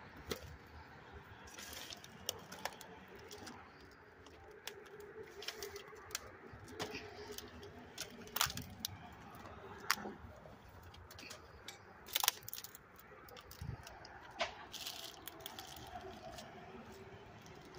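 Footsteps through dry twigs, brush and flood debris: irregular crackles and snaps, with a few sharper cracks spread through.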